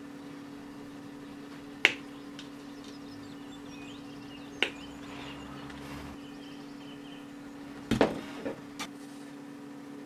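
Side cutters snipping thin wire: two sharp clicks, about two seconds and nearly five seconds in, then a quick cluster of clicks and knocks near the end. A steady low hum runs underneath.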